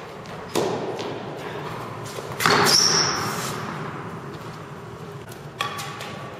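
Tennis rally in an indoor hall: three hard racket strikes on a tennis ball, each echoing. The middle strike is loudest, and a brief high squeak follows it.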